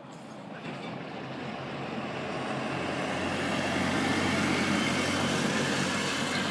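A steady vehicle rumble and hiss, growing louder over the first few seconds and then holding.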